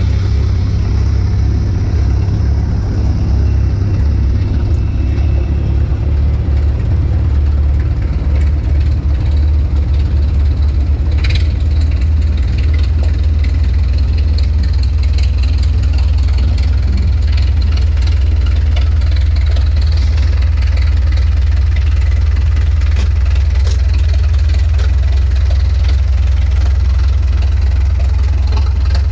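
Engine of a tracked rice-hauling machine running steadily as it carries a heavy load of rice sacks, a constant low mechanical drone, with one short sharp click about eleven seconds in.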